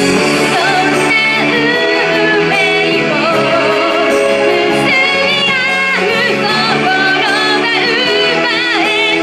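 A woman singing an anime-style J-pop song solo over an instrumental backing, her voice coming in about a second in with held, wavering notes.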